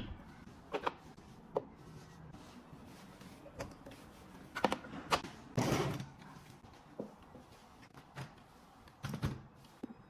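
Scattered light knocks and clicks, about a dozen at irregular intervals, over a quiet background, with a brief cluster around six seconds in and another a little after nine seconds.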